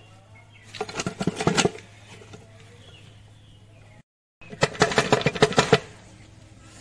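Rapid metallic clicking and clattering of the Ertiga manual gearbox's steel gear shafts and selector forks being worked down into the case. It comes in two bursts of about a second each.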